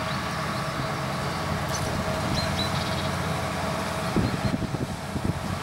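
Forage harvester chopping maize, with a tractor and trailer running alongside: a steady machine drone carrying a constant whine. About four seconds in, a short spell of low, irregular thumps and crackle comes in over it.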